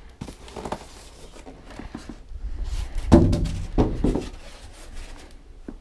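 Styrofoam packing insert being handled and lifted off a monitor: scattered light knocks and foam rubbing, with a louder, briefly pitched creak about three seconds in.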